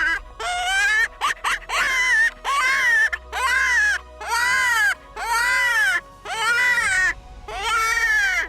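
Predator hand call blown to imitate a coyote: a longer rising note, then a run of short high yelping notes, each rising and falling, about one a second, calling coyotes in to the hunter.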